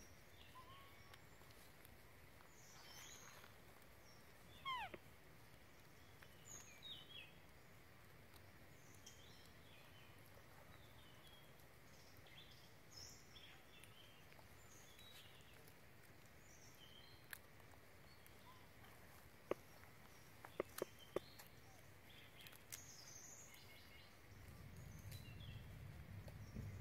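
Quiet forest ambience with faint, scattered bird chirps. A single short falling squeal about five seconds in, a few sharp clicks around twenty seconds in, and a low rumble near the end.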